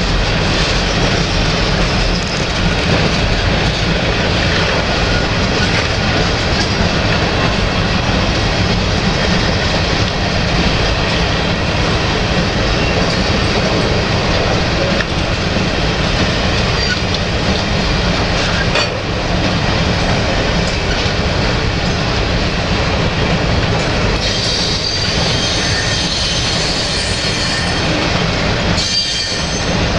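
A freight train's covered hopper cars roll past at close range, their steel wheels running loudly and steadily over the rails, with a few sharp clanks. About two-thirds of the way through, a high wheel squeal rises over the rumble for a few seconds.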